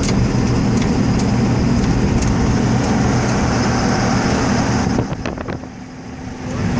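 A car driving, heard from inside the cabin: a steady engine hum under road and tyre noise, which eases off briefly about five seconds in and then builds again.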